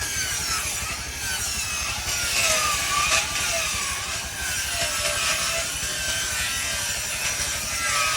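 Sawmill saw cutting through wood, a continuous whine that wavers up and down in pitch over a low rumble.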